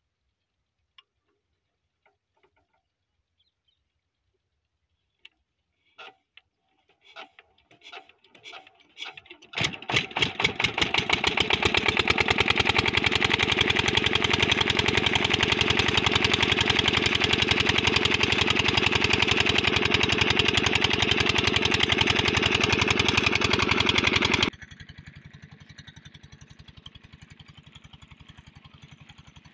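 Single-cylinder diesel pumpset engine being started: a few slow, uneven knocks that quicken, then it catches about ten seconds in and runs with a loud, rapid, even chug. Near the end the sound suddenly drops to a much fainter steady beat of the same engine.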